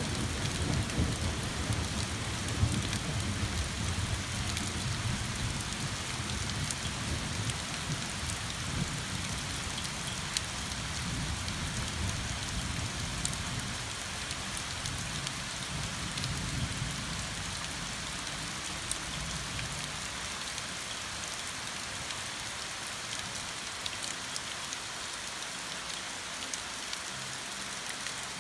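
Heavy summer rain falling steadily on oak leaves and a lawn, an even hiss. Under it a low rumble of distant thunder rolls through the first part and fades out about two-thirds of the way in.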